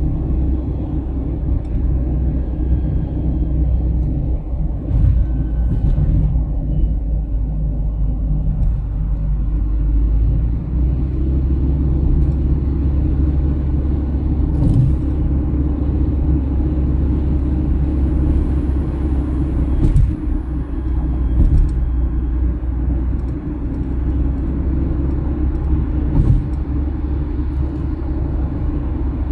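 Steady low road and engine rumble inside a moving car's cabin at highway speed, with a few brief knocks now and then.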